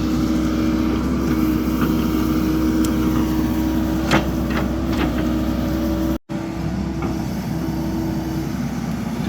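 Diesel excavator engine running steadily with a constant hum, with a few sharp knocks about four to five seconds in from the machine digging or moving rocky soil.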